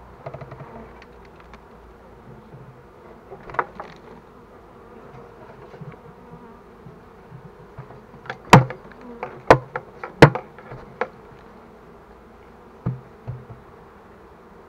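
Honeybees buzzing steadily, broken by a series of sharp knocks. The three loudest knocks come about eight to ten seconds in, with a few smaller ones around them.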